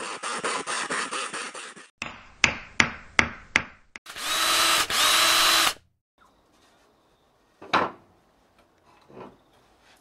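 Workshop tool sounds cut together: a power tool chattering rapidly for about two seconds, then four sharp strikes, then a power drill running hard for nearly two seconds with a brief break in the middle. A single knock comes near the end.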